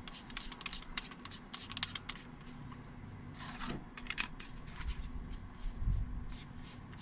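Handling noise from an assembled three-piece flashlight: a run of light clicks, taps and small scrapes as it is turned over in the hands.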